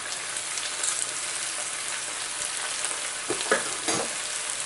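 Onion, capsicum and green chili in a sauce sizzling steadily in a frying pan, with a few short clicks about three and a half seconds in.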